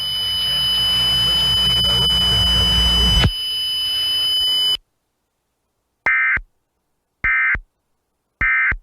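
A steady hiss with a constant high whine and low hum, cutting off suddenly about five seconds in. Then come three short warbling data bursts about a second apart: the Emergency Alert System end-of-message (NNNN) code, sent three times to close the test.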